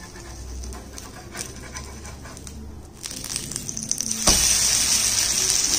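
Spatula scraping under a moringa-leaf dosa on an iron tawa, then a knock as it is flipped, followed by steady sizzling as the raw batter side meets the hot pan.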